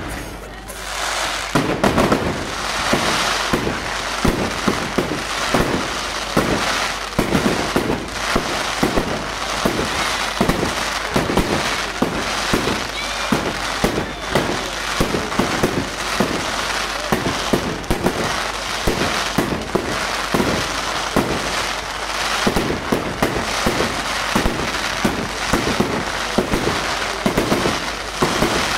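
Aerial fireworks going off in a dense, near-continuous run of bangs, several a second, with crackling between them.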